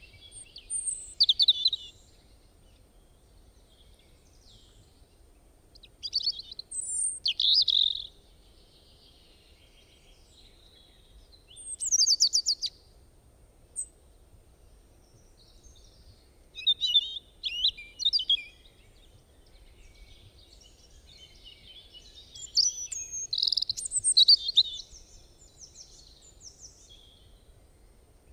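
A songbird singing short, varied phrases at intervals of a few seconds, five in all; one phrase about twelve seconds in is a rapid trill. A faint low background rumble fills the gaps.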